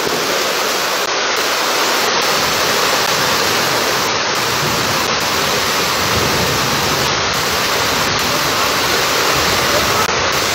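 Heavy downpour: a loud, steady rush of rain falling and runoff water flowing along the street, without let-up.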